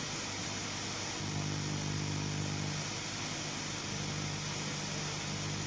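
A steady rushing noise with a low hum beneath it that grows stronger about a second in: a film sound effect of flight, a superhero soaring up through the atmosphere.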